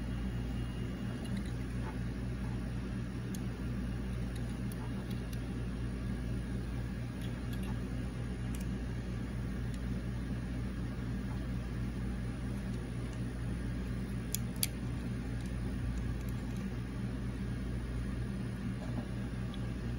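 Steady low room hum with a light hiss, and a few faint clicks as a small plastic-and-metal diecast model truck is handled, the sharpest about fourteen seconds in.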